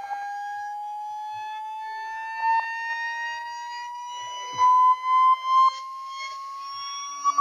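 Sine-wave test tone from a frequency sweep, gliding slowly and evenly upward from about 830 Hz to about 1100 Hz. A few brief knocks and clicks sound over it, mostly around the middle.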